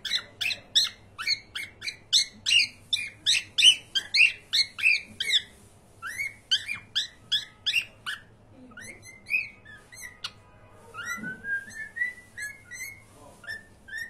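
Cockatiel whistling a rapid run of short chirping notes, about three to four a second, with a brief pause about five seconds in, then a few slower notes and a short rising run of whistles near the end.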